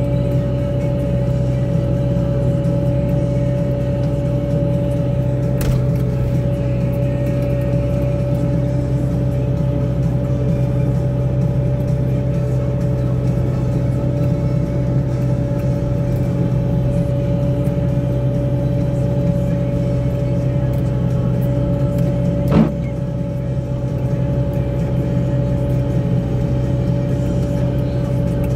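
Wille 665 loader running steadily under load with its front-mounted Tokvam snow blower working, heard from inside the cab: a constant drone with a steady high tone riding over it. A single sharp knock about 22 seconds in.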